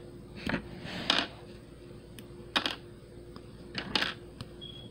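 Plastic LEGO battle droid minifigure parts clicking and clattering as they are pulled apart and set down, about half a dozen short clicks scattered through.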